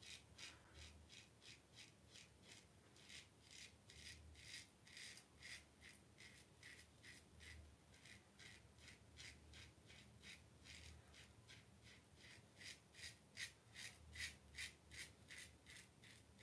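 Safety razor scraping through lathered stubble on the neck in short, quick, faint strokes, about three a second, a little louder near the end.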